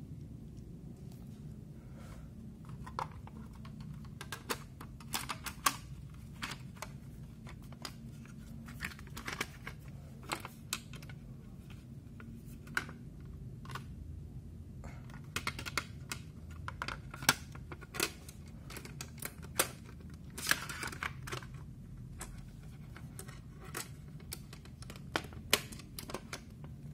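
Irregular light clicks and metallic taps of a hard drive and its mounting screws being handled against a DVR's sheet-metal case, scattered throughout over a steady low hum.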